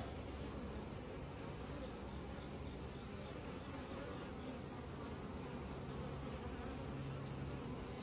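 Honeybees buzzing steadily around an open hive and the brood frame lifted out of it, with an unchanging high-pitched tone running under the buzz.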